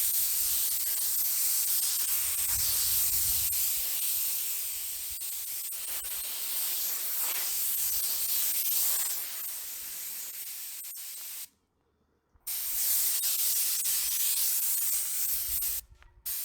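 Compressed air hissing from an air compressor's blow nozzle, blasting dirt out of pavement cracks. A steady hiss that stops for about a second two-thirds of the way through, resumes, then cuts off near the end.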